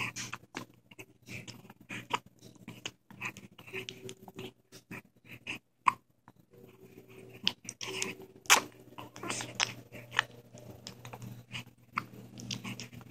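A dog hiccupping: short, sharp sounds at irregular intervals, a few of them louder, over a faint steady low hum.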